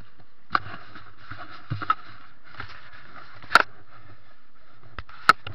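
Rubbing and scraping noise with several sharp knocks and clicks spread through, from snowboard gear being handled on the snow.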